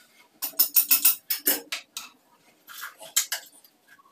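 Metal plumbing fittings and tools clinking and clicking as a flexible hose is fitted to the water heater's inlet: a quick run of sharp clinks, then a few more about three seconds in.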